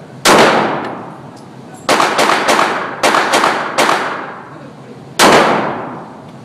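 Gunshots on a shooting range, each with a long echoing tail: a single shot, then two quick strings of about four or five shots each, and one more shot about five seconds in.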